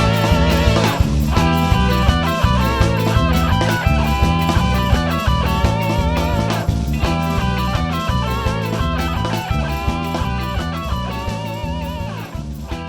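Instrumental band music: an electric guitar playing a lead line over bass and a steady drum beat, gradually getting quieter.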